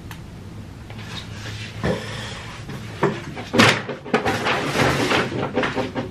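Knocks, bumps and rustling as a person gets up from a table and moves away, with the loudest bang about three and a half seconds in, followed by a run of quick clattering.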